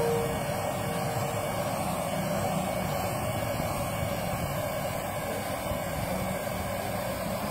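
Hot air rework gun blowing a steady rush of air onto a phone's cracked screen glass, heating it to soften the adhesive so the glass can be removed.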